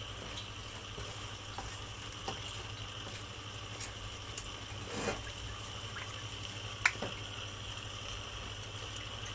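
Chop suey cooking in a pan: a steady hiss of simmering liquid and vegetables, with a few light clicks and a low steady hum.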